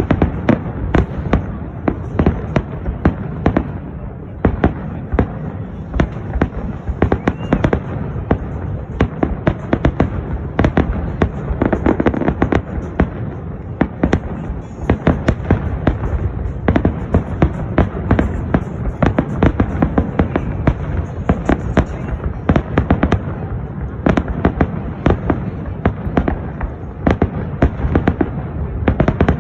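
Fireworks display: a dense, continuous barrage of sharp bangs and crackles, several a second, over a constant low rumble.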